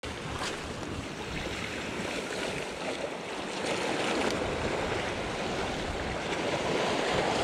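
Sea water washing against a rocky shore: a steady rushing wash with a few faint splashes, slightly louder in the second half.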